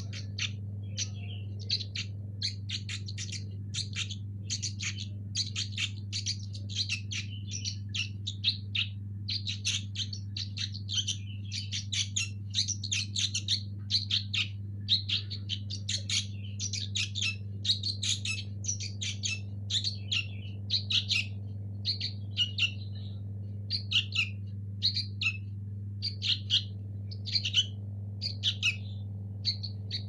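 Sooty-headed bulbul fledglings giving short, shrill begging chirps, several a second, coming fewer and further apart toward the end. A steady low hum runs underneath.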